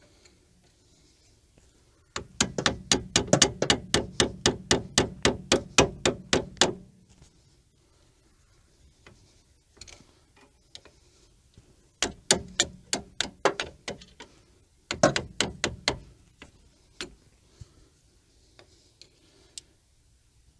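Fast runs of metal-on-metal hammer strikes, about five a second: one long run of about twenty blows, then two shorter runs, while the old hub bearing assembly is being knocked loose.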